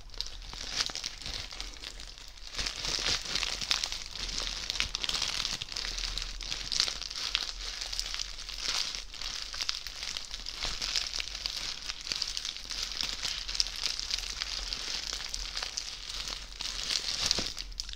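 A crinkly KitKat-branded bag being squeezed and handled close to a microphone, making a dense crackling crinkle full of tiny sharp ticks. It is lighter for about the first two seconds, then fuller and steadier.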